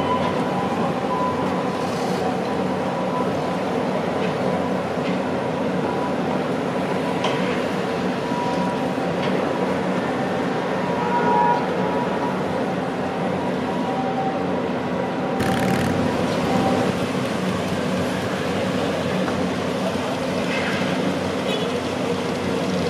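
Diesel engine of a crawler-mounted earth-drill rig running steadily at work, a continuous heavy machine drone.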